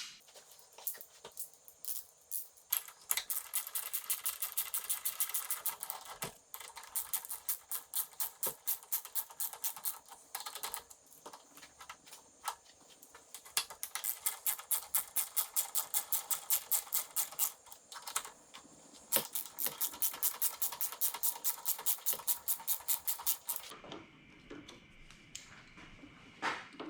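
Ratchet wrench with a T45 Torx bit tightening riser clamp screws: the pawl clicks rapidly and evenly on each back-swing, in several runs of a few seconds each with short pauses between.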